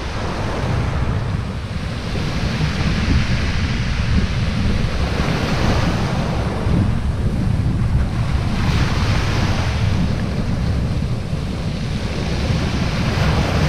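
Small waves breaking and washing up a shingle beach, the wash swelling every few seconds as each wave comes in, with wind buffeting the microphone as a steady low rumble.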